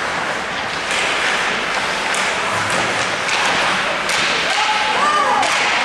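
Ice hockey play in an ice arena: skates and sticks scraping on the ice under a steady hiss, with several sharp knocks and thumps, and a voice calling out near the end.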